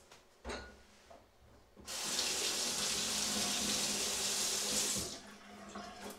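Kitchen tap running into a sink for about three seconds, then shut off. A short thump comes just before it, about half a second in.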